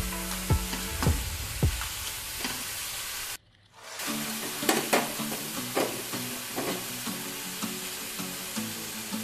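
Chopped vegetables sizzling in a hot kadai while a metal spatula stirs and scrapes them, clinking against the pan now and then. The sound cuts out briefly about three and a half seconds in.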